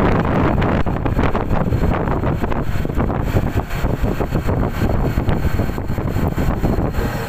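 Wind buffeting the microphone of a motor scooter on the move, an irregular fluttering rush over the low, steady drone of the engine and tyres, as the scooter eases from about 53 to 44 km/h.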